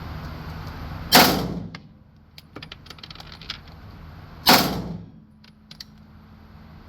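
Two single gunshots about three and a half seconds apart, each a sharp crack that rings out briefly in the range. Light metallic clinks come between the shots.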